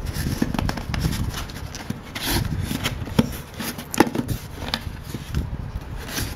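Hands handling a small corrugated cardboard box and prying its tucked-in lid open: cardboard rubbing and scraping, with a few sharp clicks and taps around the middle.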